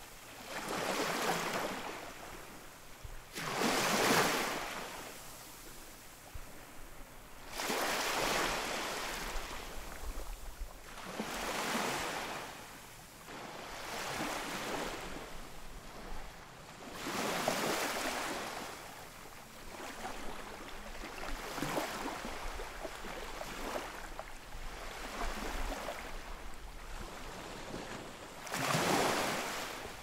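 Ocean waves breaking and washing onto the shore, each surge of surf swelling up and fading away every few seconds.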